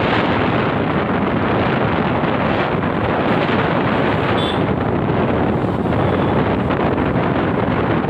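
Steady wind rushing over the microphone of a moving motorcycle, mixed with the bike's road noise.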